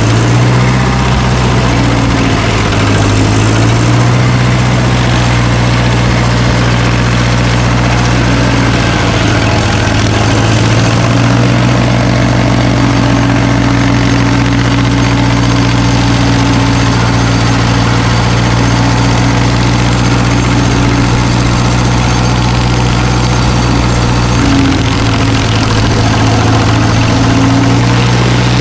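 A large engine running steadily at a low, even speed, its pitch dipping briefly a few times.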